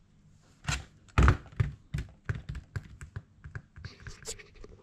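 An aftermarket race-style side mirror being handled on a workbench: a run of irregular knocks and taps, the loudest about a second in.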